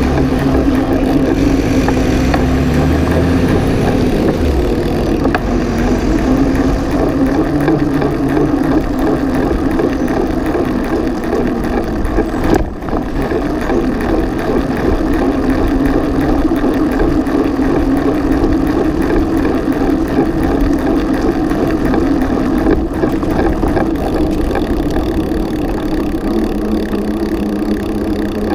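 Steady rolling noise of a bicycle ridden along pavement, heard through a camera clamped low on the frame beside the pedal, with a brief drop about halfway through.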